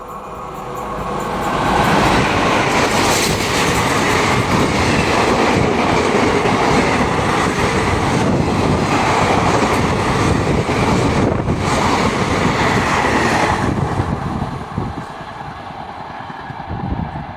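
A train passing at speed, its wheels clattering over the rail joints. The noise swells over the first two seconds, holds loud for about twelve seconds, then falls away near the end.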